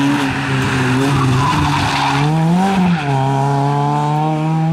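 Rally car engine at high revs through a bend, its pitch rising about two and a half seconds in, then dropping sharply at a gear change and climbing again. Tyre skid noise rises around the middle.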